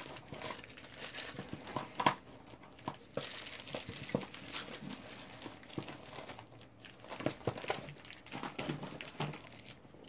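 Plastic zip-lock bags crinkling and rustling as they are rummaged through, with scattered small clicks and taps.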